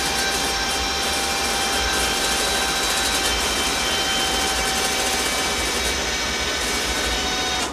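Nashua wood-burning furnace running with a steady rushing noise and a few thin, steady whines. Its automatic draft damper is opening back up to let more air to the fire.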